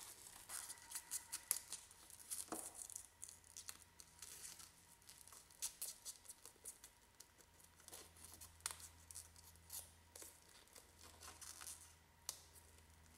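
Faint crackling and tearing of a dried Plasti Dip rubber coating being peeled by hand off chrome trim, in many short, irregular snaps.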